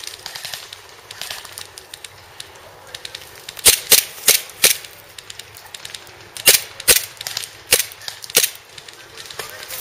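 Airsoft gas-blowback pistols firing in two quick volleys of about four sharp pops each, the second volley a couple of seconds after the first.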